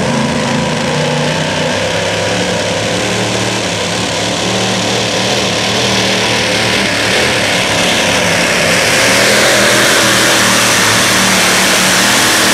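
Supercharged engine of a modified pulling tractor at full throttle, hauling the weight-transfer sled down the track. A loud, steady engine note that grows slightly louder in the later seconds.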